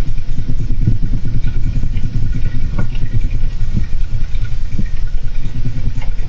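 Golden hamster busy in its cage close to the microphone: a loud, fast, steady rumble with a few sharp clicks.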